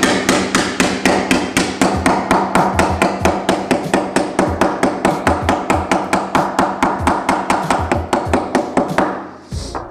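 Soft-faced mallet (Schonhammer) tapping quickly and evenly along the bend of thin sheet metal clamped between wooden battens, about five blows a second, stopping about nine seconds in. The tapping dresses the freshly bent edge to set it sharper.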